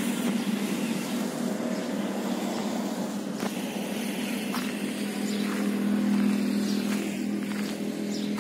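Steady engine hum of a motor vehicle, growing louder about six seconds in and easing off near the end.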